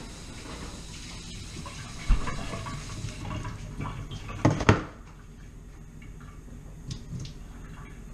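Refrigerator door thudding shut about two seconds in, then rustling and two sharp knocks as a plastic-domed rotisserie chicken container is handled and set down on a stone counter. A couple of faint clicks follow near the end.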